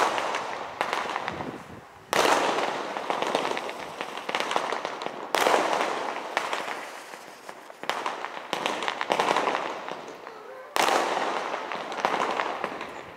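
Aerial firework shells bursting: about five sudden bangs, each followed by several seconds of dense crackling that slowly fades as the crackling stars pop.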